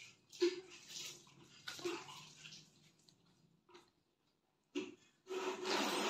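Coarse jute sacking being torn and rustled by hand: a few short scratchy bursts in the first couple of seconds, a pause, then a longer, louder rip near the end.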